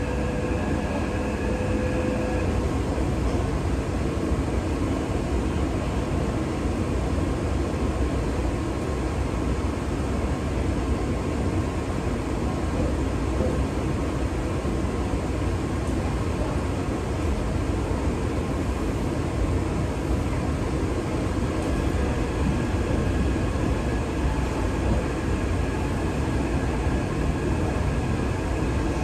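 Taipei Metro train running, heard inside the passenger car: a steady low rumble of wheels on rail. A steady electric whine sits on top at the start, fades after a couple of seconds and returns about three-quarters of the way in.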